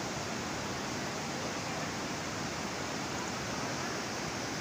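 Kunhar River in flood after heavy rain, its muddy water rushing steadily under the bridge in a constant, even roar.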